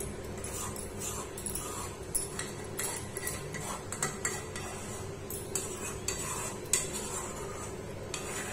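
Metal spoon stirring and scraping a thick peda mixture in a pan, with irregular clinks and scrapes against the pan.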